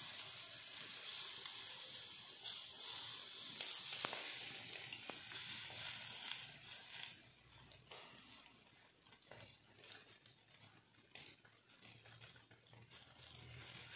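Marinated fish fillets sizzling in wire grill baskets over glowing charcoal as lemon juice goes onto them, with scattered crackles and ticks. The hiss is stronger for about the first half, then fades to a faint sizzle.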